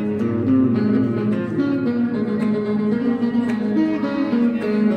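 Background music led by a plucked guitar, picked notes over a steady bass line.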